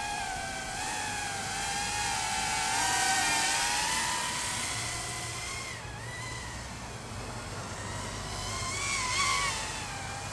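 EMAX Babyhawk micro quadcopter's 2S brushless motors and small propellers whining in flight, the pitch wavering up and down. It swells about three seconds in, drops back around six seconds, and swells again near the end.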